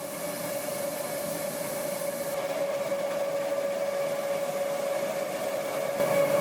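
ECOMILL 1700 multigrain roller grain mill running while milling corn grits: a steady mechanical whir with a strong steady hum, getting louder near the end.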